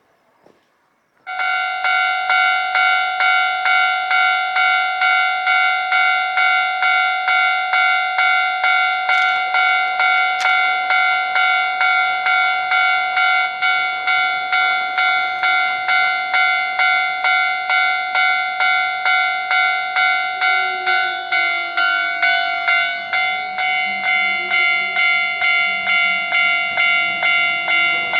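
Japanese railroad-crossing warning bell starting up suddenly about a second in, then clanging steadily at about two strokes a second: the crossing has been triggered by an approaching train.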